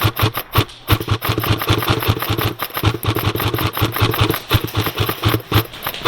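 Airsoft guns firing rapidly: a dense, uneven run of sharp cracks and rattles.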